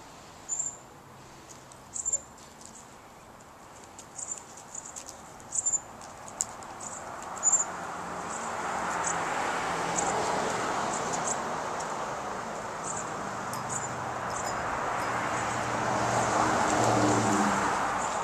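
Outdoor ambience: a few short, high chirps in the first half. Then a broad rushing sound with a low hum swells, eases and swells again before fading near the end.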